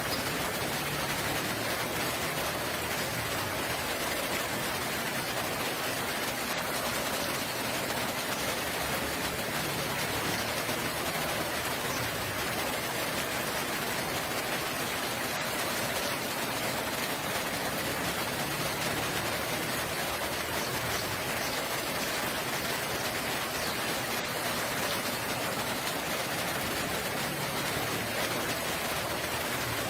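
Steady rain falling, an even, unbroken hiss with no changes in strength.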